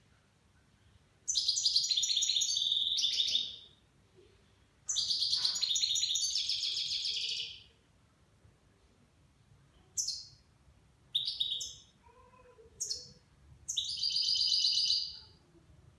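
A nine-month-old European goldfinch singing: two long, rapid twittering phrases of about two and a half seconds each, then three short calls, and a final phrase of about a second and a half, in what its owner calls the Levantine (Shami) style of goldfinch song.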